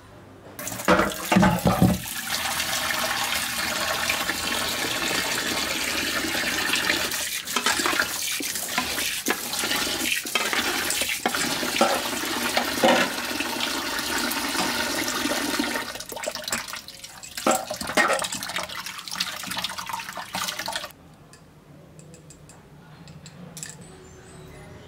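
Kitchen tap running hard into a pan of prawns in a steel sink, with a hand swishing the prawns to wash them and irregular splashes and knocks. The water cuts off suddenly near the end.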